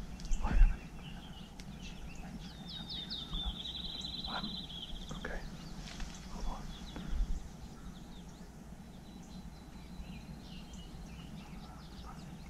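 Outdoor field ambience with a songbird singing a fast, high trill for about two seconds, starting roughly three seconds in. Faint scattered chirps follow. Near the start there are low rumbles on the microphone.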